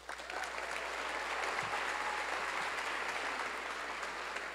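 Audience applauding. It starts at once, holds steady, and eases a little near the end.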